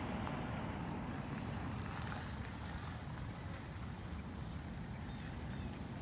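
Steady low rushing noise of the swollen Connecticut River in flood, with a few faint high bird chirps in the second half.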